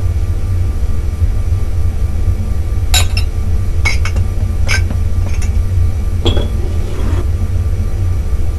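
A deep, steady rumble throughout, with a handful of sharp tableware clinks, glass and cutlery, between about three and seven seconds in.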